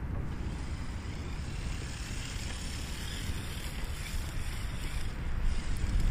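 Wind buffeting the microphone: a steady low rumble with a little hiss, growing slightly louder near the end.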